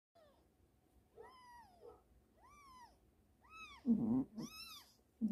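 One-week-old kittens mewing: about five short, high-pitched mews a second or so apart, each rising and then falling in pitch. A brief low bump about four seconds in is the loudest moment.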